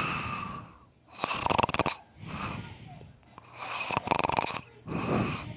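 A man snoring heavily in deep sleep. There are two loud, rattling snores about two and a half seconds apart, each followed by a softer breath.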